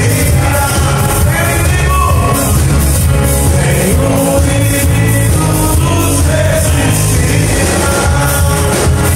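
A live gospel rock band playing loudly, with electric guitars and a steady drum beat under voices singing.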